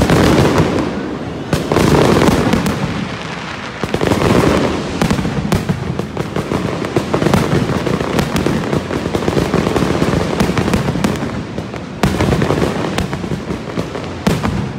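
Aerial firework shells bursting in quick succession: loud booms with a rolling rumble and crackle between them. The biggest blasts come at the very start, about a second and a half in, about four seconds in, about twelve seconds in and near the end.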